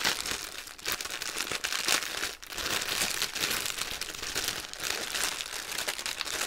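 Clear plastic wrapping around a bundle of drill bags crinkling and crackling continuously as hands squeeze and pull at it to open it; really loud.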